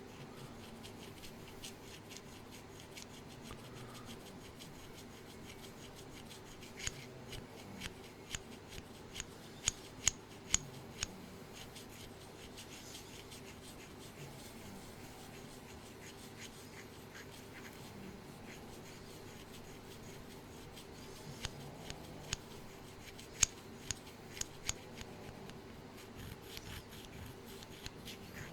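Quiet handling noise: faint rubbing with scattered sharp clicks or snips, coming in two bunches, about a quarter of the way in and again past two-thirds, over a faint steady hum.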